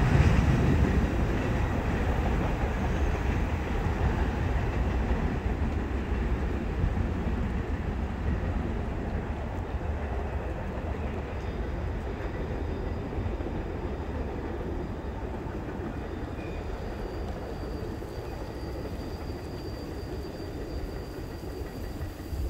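Autorack freight cars rolling away on the rails, a low steady rumble that slowly fades as the end of the train draws off into the distance.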